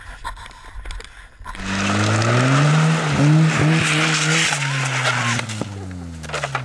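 A car's engine and tyre noise starting about a second and a half in, the engine note rising slightly and then falling away over several seconds, with a few knocks in the middle.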